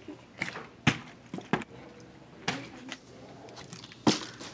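Plastic water bottle being flipped and knocking down onto a table: four sharp knocks, the loudest near the end.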